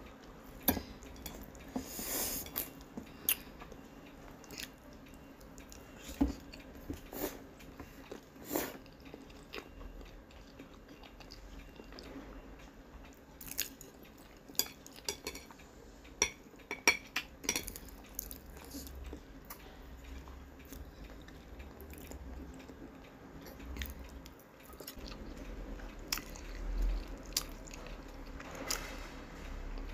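Close-up mouth sounds of eating: chewing and biting on a half-boiled egg and spicy instant noodles, with scattered sharp clicks of chopsticks against a ceramic plate. Near the end, noodles are drawn into the mouth.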